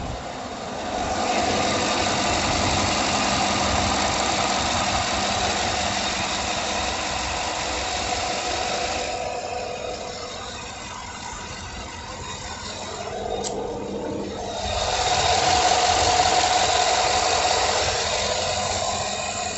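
Truck engine idling steadily, with its belt-driven vacuum pump disconnected and the brake booster run off the intake. It goes quieter for about five seconds in the middle, then comes back up.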